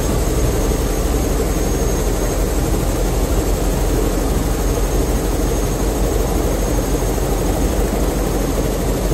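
Airbus H125 (Esquilo) helicopter running at steady speed, heard from inside the cockpit: a loud, even rush of engine and rotor noise with a thin high turbine whine on top.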